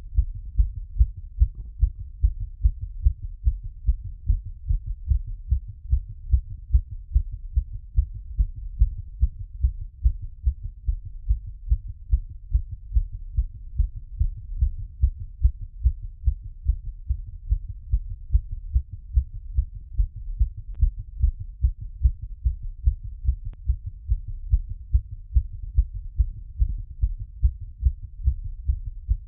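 A human heartbeat heard through a stethoscope after exercise: a quick, regular lub-dub of low thumps, roughly a beat and a half each second.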